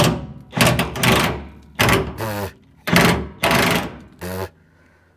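Cordless half-inch impact wrench hammering on a fuel-tank strap bolt in about five short bursts, loosening it.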